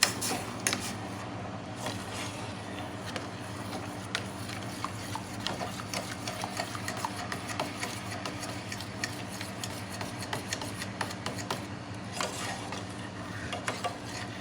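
Spoon stirring and scraping thick barbecue sauce in a pot: irregular small clicks and scrapes over a steady low hum.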